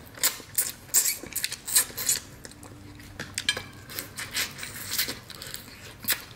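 Wet sucking and slurping of meat and Cajun butter sauce out of snow crab legs, in a string of short smacking bursts.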